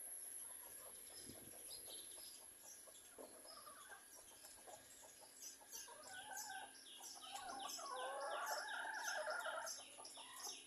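A chicken calling, loudest from about six seconds in until shortly before the end. Under it, a small bird repeats short high chirps at about two to three a second.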